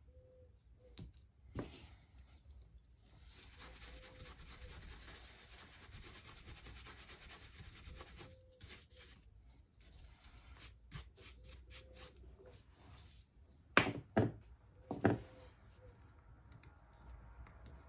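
Paintbrush bristles scrubbing across a CNC-carved oak board, brushing loose chips out of the carving: a steady scratchy hiss, then shorter separate strokes. A few sharp knocks about fourteen to fifteen seconds in are the loudest sounds.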